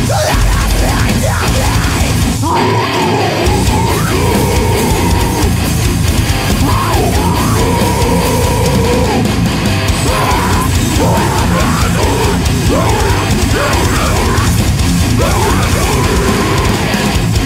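Deathcore studio recording: distorted electric guitars and a drum kit playing at full loudness, dense and unbroken.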